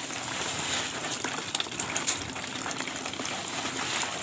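Water sloshing as a hand stirs unhusked rice grains soaking in a basin, with a steady hiss and small scattered ticks of grain and water; the grains are being washed so the floating ones can be skimmed off.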